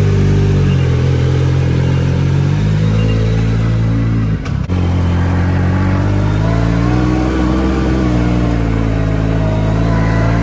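Yamaha YXZ1000R side-by-side's three-cylinder engine running steadily, with a brief break about four and a half seconds in, then driving slowly with the engine pitch rising and falling a little.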